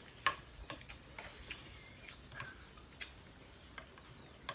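Scattered light clicks and clinks of a plastic ladle and spoons against a glass serving dish and plates as soup is being served, a handful of sharp taps at irregular intervals.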